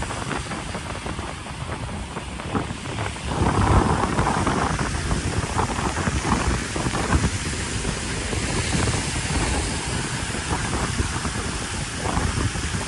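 Wind buffeting the microphone over a steady outdoor rushing noise, with a brief louder gust about four seconds in.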